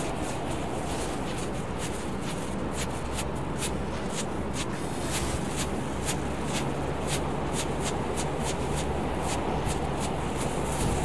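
Ground strobe firework burning: a fast, irregular string of sharp crackles, several a second, over a steady hiss.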